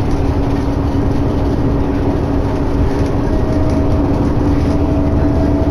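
Steady drone of a 2011 New Flyer D60LFR articulated diesel bus under way, heard from inside: deep engine and road rumble with a constant hum over it, and a second, higher hum joining about halfway through.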